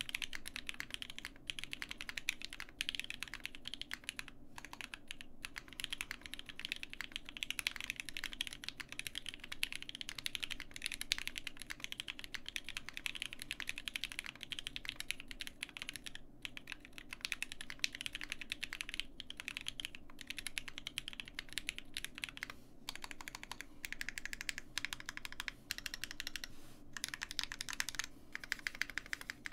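Steady typing on a gasket-mounted Roze 65 custom mechanical keyboard with Gateron Cap Yellow V2 linear switches: a continuous run of keystroke clacks with a few brief pauses.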